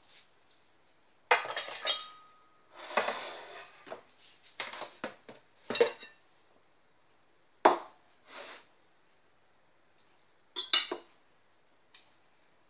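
Crockery and cutlery being handled on a kitchen counter: bowls and plates set down and moved, and a fork clinking against them. It comes as a string of separate clatters and clinks with short gaps between, one dish ringing briefly after about two seconds.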